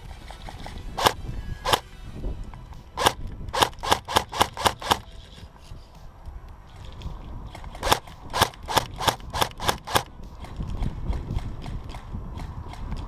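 Airsoft guns firing: two single shots, then a quick string of about seven shots, and after a pause another string of about eight. A low rumbling noise fills the last few seconds.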